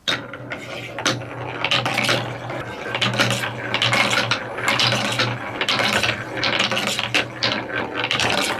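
Many marbles clattering down connected TrixTrack plastic wave-slope track pieces: a dense, continuous rattle of quick clicks, with a low steady hum underneath for most of it.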